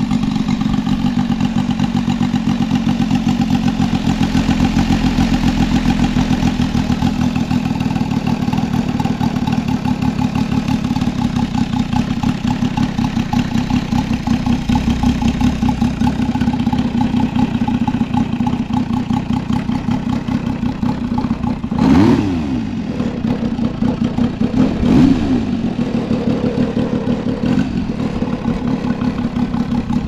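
Saito FG-33R3 three-cylinder radial engine of a large RC model biplane running steadily in flight with a regular pulsing beat. Twice near the end, the pitch swoops down sharply and the sound briefly gets louder as the plane flies close past.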